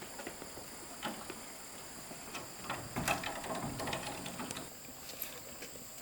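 Steady high-pitched insect chorus, with scattered rustles and light knocks that bunch together and are loudest a little past the middle.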